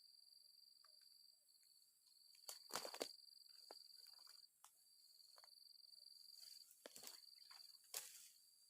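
Steady high-pitched insect trilling that breaks off briefly a few times, with a few sharp clicks or knocks: the loudest about three seconds in, and more near the end.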